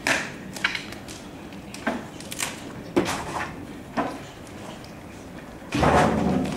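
Old wooden roof boards and battens being pulled and broken loose by hand: a string of sharp cracks and knocks of timber, then a longer, louder clatter of wood near the end.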